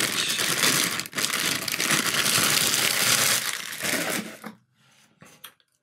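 Lens packaging being handled and unwrapped, rustling for about four and a half seconds with a brief break about a second in. A few light knocks follow near the end.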